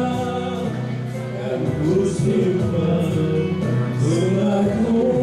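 A man and a woman singing a duet into microphones through a PA system, over music.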